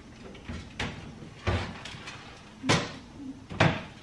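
Four light knocks and clicks of objects being handled and set down on a kitchen countertop, the last two the loudest.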